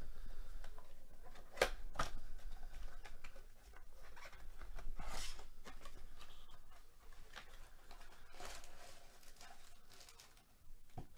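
Cardboard trading-card blaster box being torn open by hand: crackling and rustling of the cardboard, with two sharp snaps about two seconds in and louder tearing and rustling later as the flap is pulled back.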